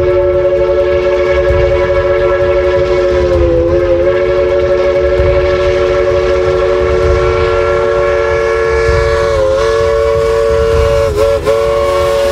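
Locomotive air horn sounding one long, loud chord of several notes at once, held with a few brief wavers in pitch, over the low rumble of the train.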